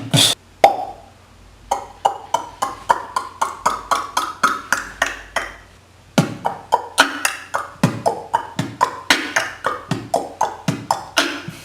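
A beatboxer making a sound effect with his mouth: two runs of quick tongue clicks and pops, about four or five a second, the second run, starting about halfway, with deeper pops mixed in.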